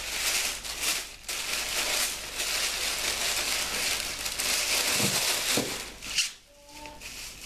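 Plastic packaging crinkling and rustling as a small parcel is opened by hand, with a few light knocks near the end as the rustling dies down.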